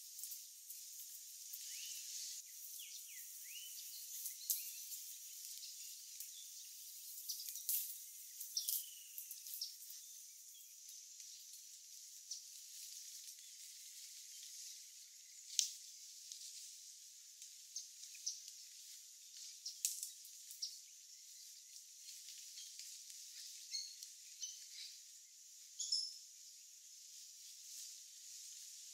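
Forest ambience with a thin sound and no low end: a steady high-pitched hiss, short bird chirps that glide down in pitch, and scattered sharp clicks and snaps.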